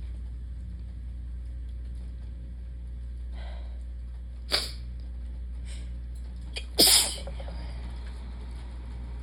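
A person sneezing twice in a fit: a short sharp sneeze about four and a half seconds in, with a breath drawn in just before it, then a louder, longer sneeze about two seconds later. A steady low hum runs underneath.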